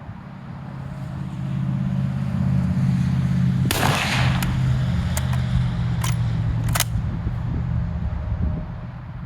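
Low engine rumble that swells over the first couple of seconds, holds, and fades near the end. A brief burst of noise comes near the middle, followed by a few sharp cracks.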